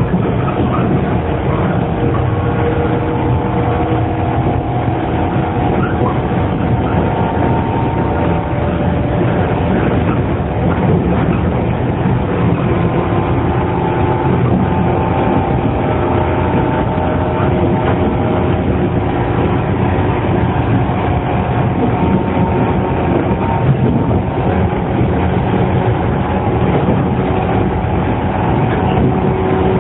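Running sound of a JR 115-series resistance-controlled electric train, motor car MoHa 115-1034: a steady rumble of wheels on rail and traction motors, with faint steady tones running through it.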